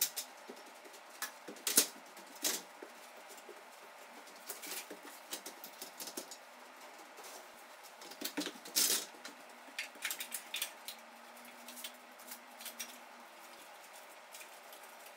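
Irregular sharp knocks and clicks of hands-on installation work: an aluminium stepladder being moved and climbed, and the hanging parts being handled. The loudest knocks come about two seconds in and again about nine seconds in.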